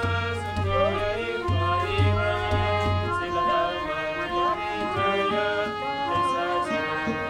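Recorded music with a melody of sliding notes over a low bass line; the bass drops out about three seconds in.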